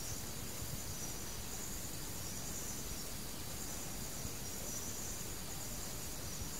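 Crickets chirring steadily in a high band over a constant background hiss.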